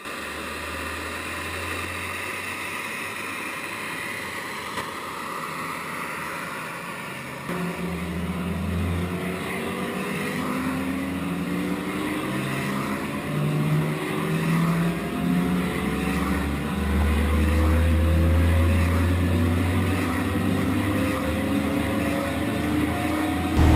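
A microlight trike's engine runs steadily. About seven seconds in, a large turbine helicopter starting up takes over, heard from its main rotor head: several whining tones rise slowly as the engines and rotor spool up, growing louder toward the end.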